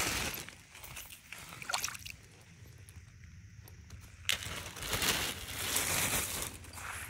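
Footsteps sloshing and squelching through wet clay and shallow rainwater, uneven and irregular. A sharp click comes about four seconds in, followed by a louder stretch of rustling.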